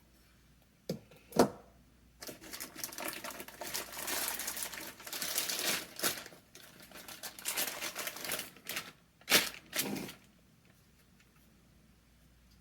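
Packaging being handled during an unboxing: a couple of sharp knocks, then several seconds of irregular rustling and scraping of cardboard and wrapping, and two more sharp knocks a half-second apart near the end.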